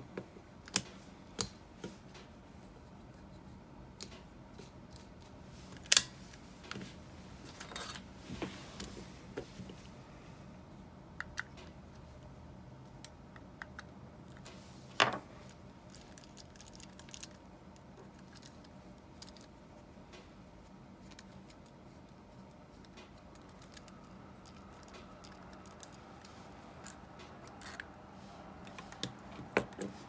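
Small metal clicks, taps and handling noise as an Abu Garcia Ambassadeur 1500C baitcasting reel is taken apart and its handle-side plate is removed. Sharp clicks come at irregular intervals, the loudest about six and fifteen seconds in.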